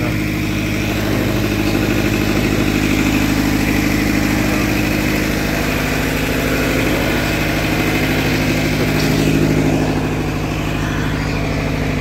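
Diesel generator engine running steadily at constant speed, giving a continuous low hum.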